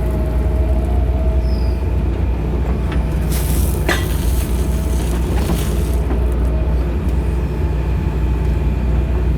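John Deere excavator's diesel engine running steadily, with a brief hiss and a click between three and four seconds in.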